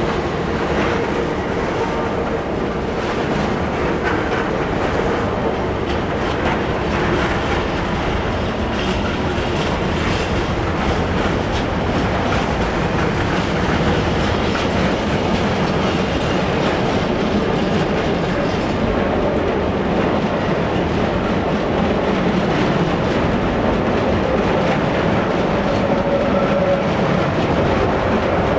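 Container freight train's flat wagons rolling past: a steady rumble of steel wheels on rail with rapid clickety-clack over the rail joints.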